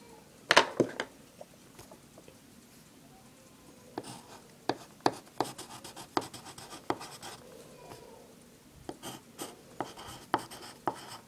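Pencil writing on lined notebook paper: short scratching strokes in two runs, with a louder scrape about half a second in.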